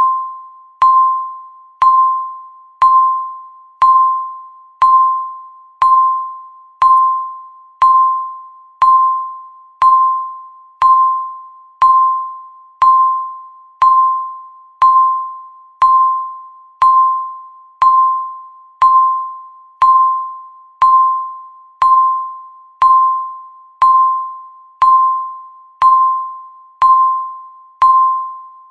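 Countdown timer's once-a-second beep: a single clear bell-like tone struck every second, each fading away before the next.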